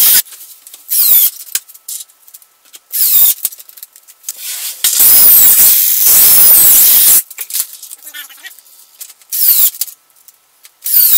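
Cordless drill running in short bursts into the side panel of a melamine board cabinet, its motor whine rising and falling with the trigger. The longest burst lasts about two seconds, in the middle.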